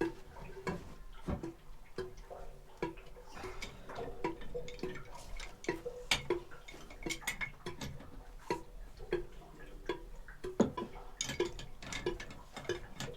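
Steady, regular ticking, a little faster than once a second, with scattered knocks and clatter from plastic pipe fittings being handled.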